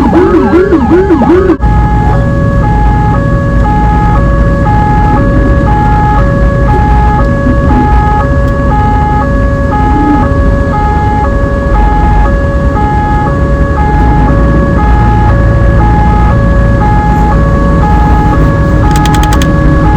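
Indonesian ambulance siren: a fast yelp sweeping up and down for about the first second and a half, then changing abruptly to a two-tone hi-lo pattern that alternates about once a second, over a steady low rumble.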